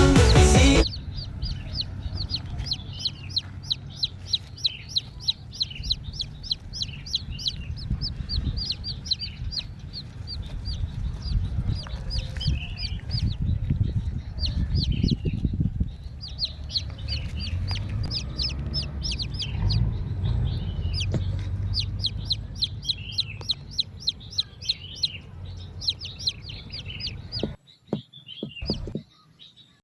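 Chickens calling: a long run of short high peeps over a low, steady rumble. Music cuts off about a second in, and a few clicks come near the end.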